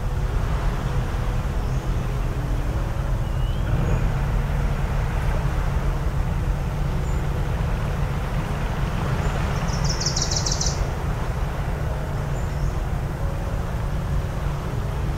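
Steady low drone of a distant motor over waves washing on the shore. About ten seconds in, a bird gives a quick, high trill.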